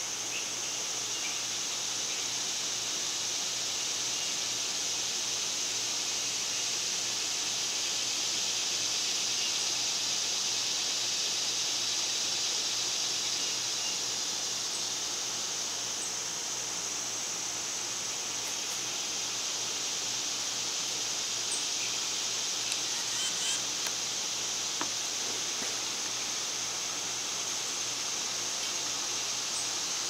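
Steady high-pitched drone of an insect chorus, swelling slightly midway. A few faint bird chirps sound about a second in, and a few light taps come about three quarters of the way through.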